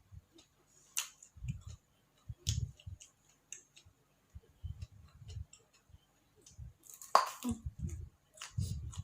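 A person eating close to the microphone: irregular chewing with crisp crunches and clicks, and one louder crunch about seven seconds in.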